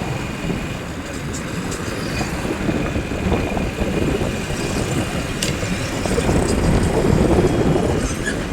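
Motorcycle riding noise: engine, road and wind rumble on the microphone, swelling a little in the second half, with a few faint clicks.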